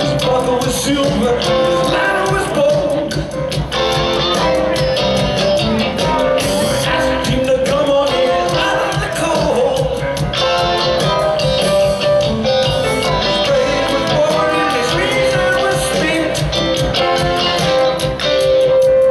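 Live rock band playing: electric guitar and a drum kit with cymbals, with pedal steel guitar.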